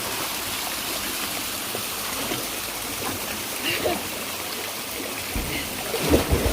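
Steady rush of flowing river water, with a few faint voices about halfway and a couple of dull low bumps near the end.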